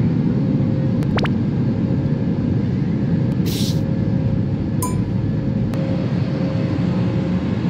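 Steady low rumble of an airliner cabin heard from a passenger seat: jet engines and airflow. A few light clicks come about a second in, and a brief hiss about three and a half seconds in.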